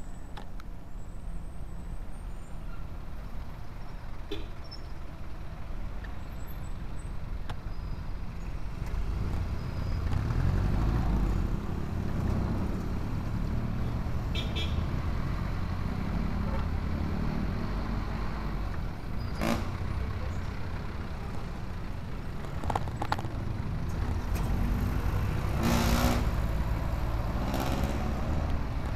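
Busy city street traffic: cars and jeepneys with their diesel engines running close by, over a steady low rumble of engines and road noise. There are a few short sharp noises, and a nearby engine gets louder near the end.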